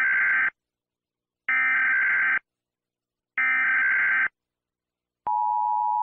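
US Emergency Alert System alert tones: three bursts of SAME header data, each about a second long with a second's gap between, the coded digital warble that opens an EAS broadcast. Near the end the steady two-tone EAS attention signal begins.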